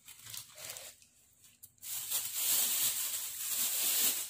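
A thin plastic bag crinkling and rustling as it is handled: a few short crackles in the first second, then steady, continuous rustling from about two seconds in.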